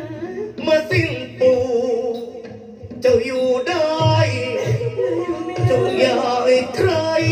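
A man singing a Thai likay song through a microphone, held and bending notes, over band accompaniment with low drum beats.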